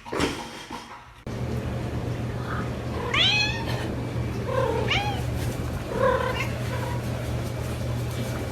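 A domestic cat meowing several times over a steady low hum: one long meow about three seconds in, then shorter meows.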